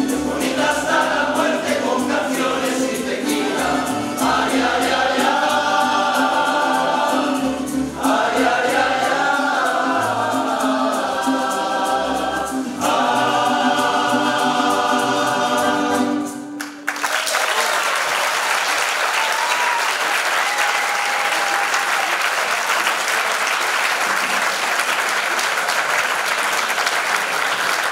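A tuna's male chorus sings to plucked guitars and bandurrias, ending the song on a long held final chord that cuts off sharply a little past halfway through. The audience then breaks into steady applause.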